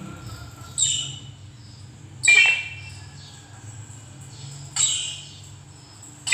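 Short squawking bursts from a two-way radio's speaker, four of them about a second and a half to two and a half seconds apart, as the repaired HYT TC580 handheld receives test transmissions: its audio output is working again. A faint steady hum runs underneath.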